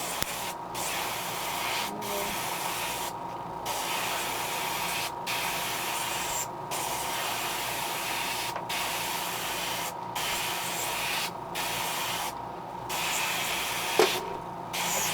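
Airbrush spraying paint in a steady hiss, broken by short pauses every second or so as the trigger is let off.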